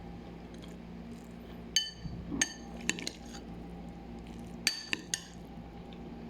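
Kitchenware clinking: a few sharp, ringing strikes of a utensil on a dish or pot about two seconds in, and another short cluster near five seconds, over a steady low hum.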